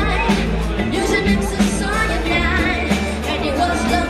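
Live pop-rock band amplified over a PA system: a singer's voice carrying the melody over a steady bass line and a regular drum beat.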